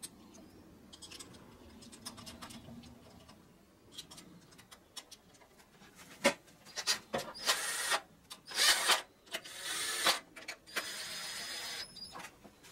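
Cordless impact driver running in the ignition-coil bolts, in several short bursts from about six seconds in and then a longer steady run with a thin high whine near the end. Before that, a few light clicks of parts being handled.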